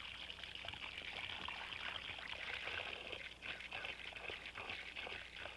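Water running from a standpipe tap and splashing onto the ground in a steady stream.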